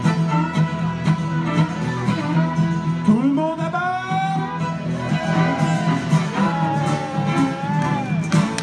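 Live acoustic band of two fiddles and an acoustic guitar, the guitar strumming a steady chugging rhythm. About three seconds in, a man's voice comes in with a sliding, then long-held line over the strumming.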